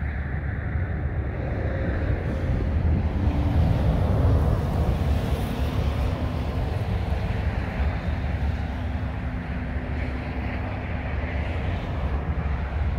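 Road traffic passing on the highway, a steady low rumble that swells as a vehicle goes by about four seconds in.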